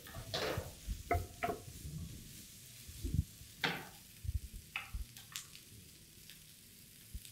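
Wooden spoon stirring chunky vegetables in a frying pan: a run of short scrapes and knocks against the pan over the first five seconds, then quieter, over a faint sizzle.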